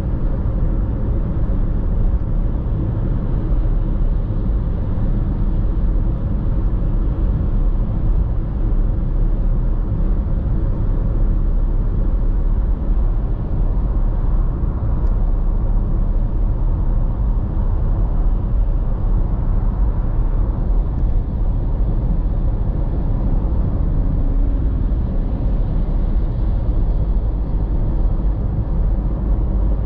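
Steady low rumble of tyre and engine noise heard inside a car cruising at motorway speed, even throughout with no distinct events.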